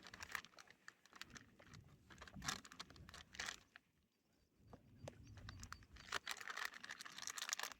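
Plastic MRE pouches crinkling and crackling as they are handled and folded, likely the flameless ration heater bag. Faint and irregular, with a brief lull about four seconds in.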